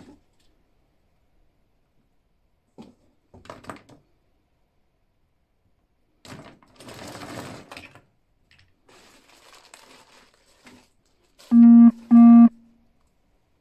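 Plastic action figures clattering and rustling as they are sorted by hand on a tiled tabletop. Near the end come two short, loud electronic buzzes at one steady pitch.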